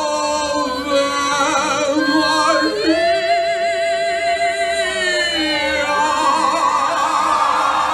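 Singing into a microphone over the hall's PA system, with long held notes that waver in vibrato. The longest held note starts about three seconds in and lasts about two and a half seconds.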